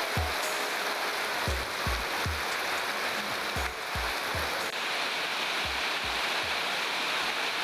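Heavy tropical downpour: a dense, steady hiss of rain falling on roofs and foliage. Over it plays background music with a deep drum beat in groups of three thumps about every two seconds.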